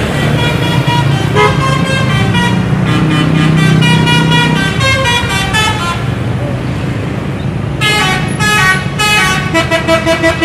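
Bus engines running in slow traffic, with short horn tones sounding now and then. From about eight seconds in, a bus sounds a multi-note musical horn, the Indonesian "telolet" type, in rapid changing pulses.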